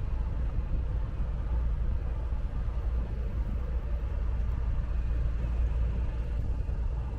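Motor dhow's engine running steadily under way, a continuous low rumble with a noisy wash over it.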